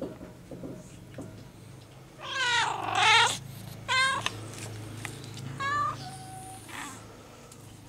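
Cats meowing at each other: a long, wavering, loud cry about two seconds in, then shorter meows at about four and six seconds, the tortoiseshell calling with its mouth open toward the grey cat.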